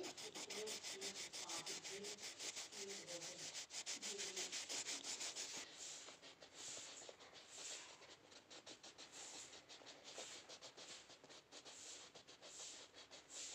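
A crayon scribbling back and forth on worksheet paper, several quick rubbing strokes a second. The strokes become sparser about six seconds in, where colouring switches from yellow to blue.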